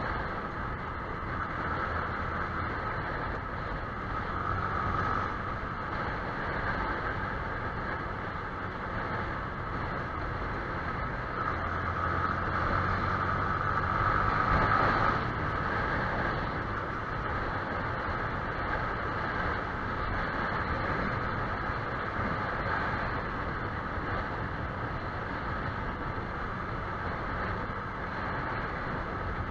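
Onboard sound of a Yamaha YZF-R15 motorcycle under way: a steady engine hum mixed with wind and road rush. It grows louder about twelve seconds in and drops off suddenly a few seconds later.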